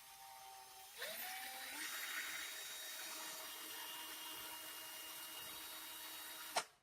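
Doliz BD618 21 V cordless drill running free with no load: the motor whine rises in pitch about a second in as it speeds up, runs steadily, then stops abruptly with a click near the end.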